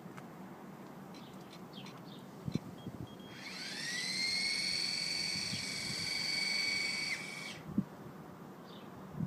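A high-pitched small-motor whine spins up about three seconds in, holds a steady pitch for about four seconds, then cuts off. Faint bird chirps come and go around it.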